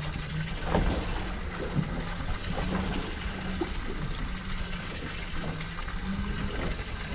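Water splashing and lapping around a small boat on open sea, over a steady low hum. There are a couple of short knocks about one and two seconds in.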